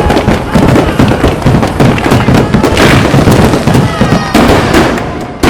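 Dense barrage of aerial firework shells bursting, one bang on top of the next with crackling throughout. A brighter crackle swells about halfway through.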